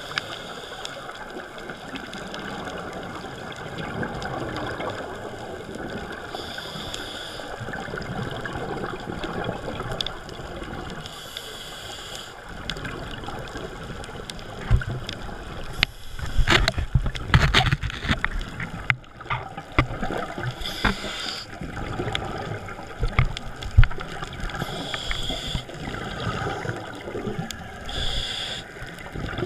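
Underwater sound of scuba diving: a steady rushing, with short bursts of exhaled regulator bubbles about every four to five seconds. A cluster of knocks and low rumbles comes in the middle.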